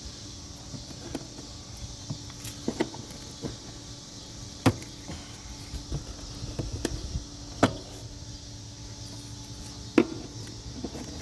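Old, brittle plastic covering over a blower motor resistor cracking and snapping as it is pried apart with a screwdriver: a few sharp cracks several seconds apart, the loudest about halfway through and near the end.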